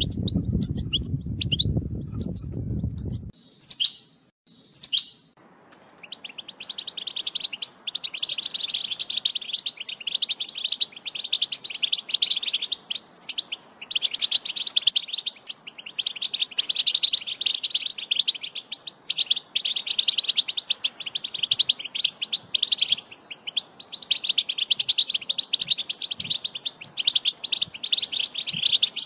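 European goldfinch singing its fast, continuous twittering song. A few separate chirps come over a low hum at first; from about five seconds in the twittering runs almost without break.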